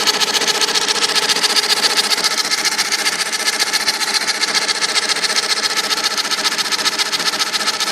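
IBM Selectric II typewriter running, its motor turning with a steady hum and a fast, even rattle. The cracked center hub is slipping: it spins while the operational shaft stays still.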